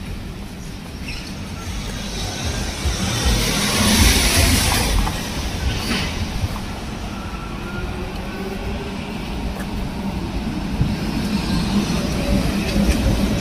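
Street traffic: a motor vehicle passes with a swell of engine and tyre noise about four seconds in, over a steady low hum of city traffic.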